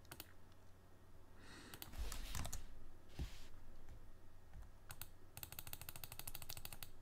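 Faint clicks of a computer keyboard and mouse, scattered at first, then a fast run of clicks lasting about a second and a half near the end.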